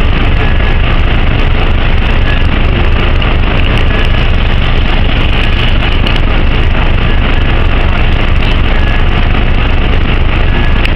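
Steady, loud engine rumble mixed with a rushing hiss, without pauses or distinct events.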